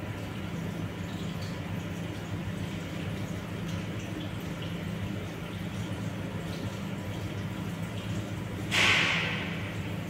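Steady low electrical hum with a faint hiss behind it. About nine seconds in, a sudden loud rushing hiss fades away over about a second.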